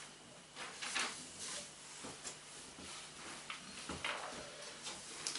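A handful of brief soft knocks and rustles from someone moving about and handling things, spread irregularly over a few seconds, over a faint steady hum.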